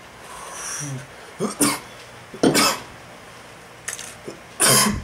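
A man breathes out a hit from a water pipe, then coughs hard about five times in short fits, the smoke irritating his throat.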